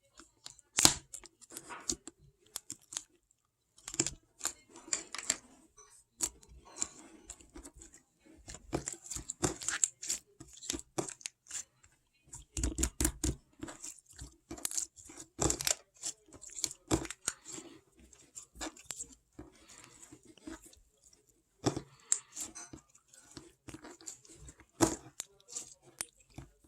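Paper being handled, crinkled and torn in short, irregular crackly bursts.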